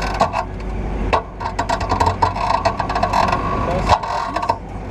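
Rapid mechanical clicking and rattling from a fairground ride's seat and restraint mechanism, under voices talking.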